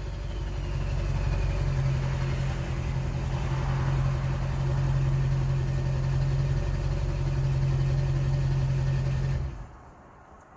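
Ford 7.3-litre V8 turbo diesel engine running with a steady low drone, picking up slightly about a second in and holding, then stopping suddenly near the end.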